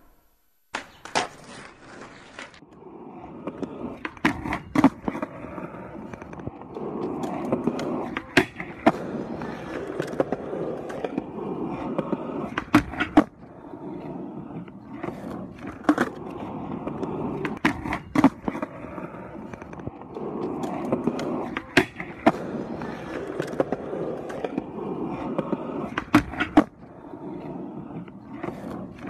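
Skateboard rolling over street pavement, with sharp clacks every second or two.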